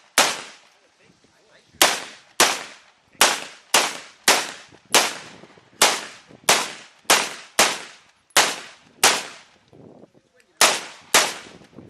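A string of aimed gunshots in a 3-gun stage: about fifteen sharp shots at roughly half-second intervals, each with a short echoing tail. There are brief pauses about two seconds in and again near the end.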